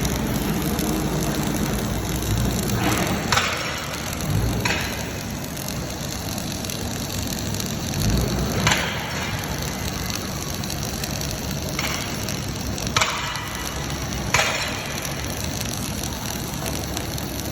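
MIG welding arc from a 500 A welder crackling steadily while a bead is laid, with a few sharp pops scattered through it.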